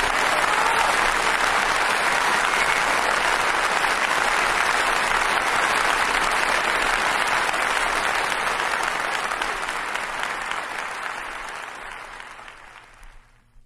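A live theatre audience applauding, a dense steady clapping that dies away over the last few seconds.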